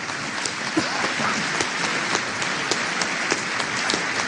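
Audience applauding: many hands clapping in a steady, dense patter, with single sharper claps standing out.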